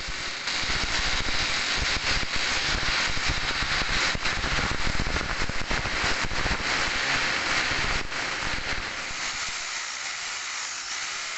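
Corded electric drill boring into a wall, a steady, loud grinding drone that eases off slightly near the end.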